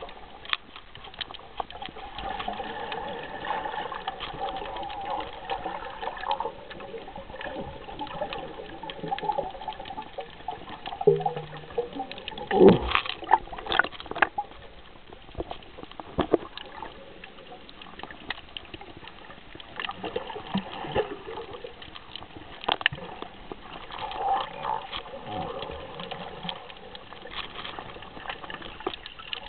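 Water sloshing and bubbling around a camera in the water while snorkeling, with scattered clicks and knocks, the loudest a cluster about halfway through.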